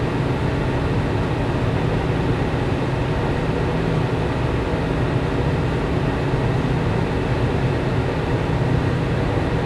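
Steady low mechanical hum with no breaks or changes, the constant background of machinery and air handling.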